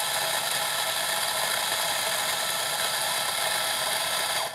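Ceado E37j espresso grinder's 64 mm burrs grinding a timed double dose of coffee: a steady grinding whir that cuts off suddenly near the end as the dose timer stops the motor.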